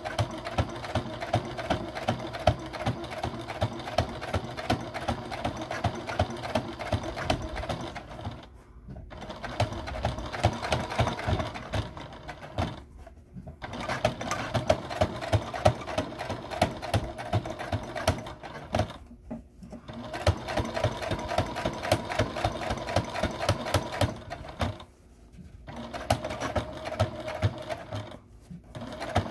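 Electric home sewing machine top-stitching a fabric cuff, running with rapid, even needle ticks. It stops briefly about five times as the fabric is turned and guided.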